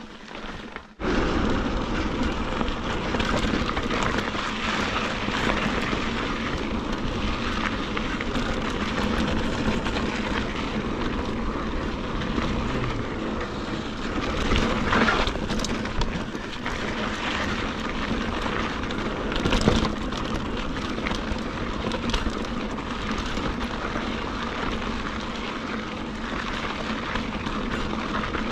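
Wind rushing over a GoPro's microphone and a mountain bike rolling fast over dry dirt and small rocks. The steady noise cuts in suddenly about a second in, and there are two harder knocks from the bike about halfway through and a little later.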